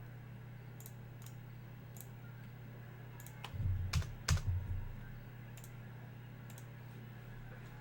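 Sparse light clicks and taps, with a few soft thumps clustered about halfway through, over a steady low hum.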